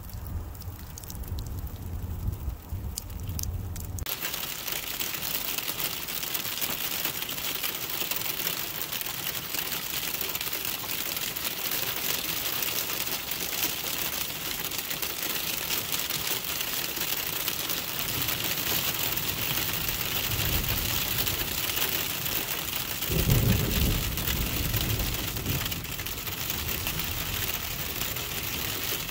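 Freezing rain and sleet pattering on a car's glass, a steady hiss heard from inside the car. About twenty-three seconds in, a low rumble swells for a couple of seconds.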